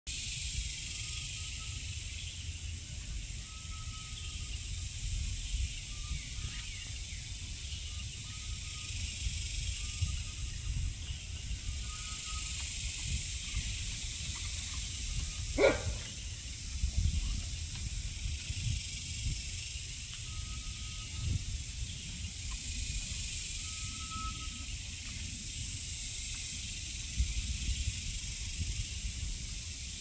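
Outdoor ambience: a steady low rumble and a high hiss, with a short animal call repeated every second or two. One brief sharp sound about halfway through.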